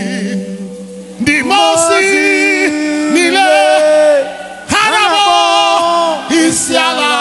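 Unaccompanied group singing: several voices holding long notes with vibrato, in phrases broken by short pauses about a second in and again just past the middle.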